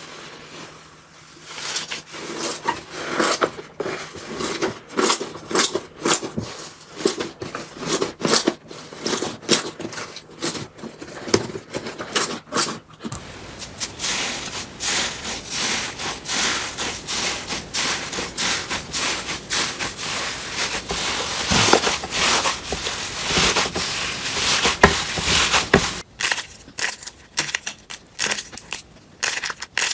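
Hands squeezing and working slime, a run of crackles and pops. Rhythmic squeezes at first, a dense run of crackling from about halfway to near the end, then separate sharp pops.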